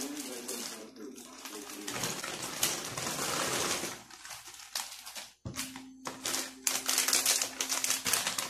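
Plastic packaging bags crinkling and rustling as cashew nuts are poured into a clear plastic bag, with the light clatter of the nuts. A steady low tone joins in the background about halfway through.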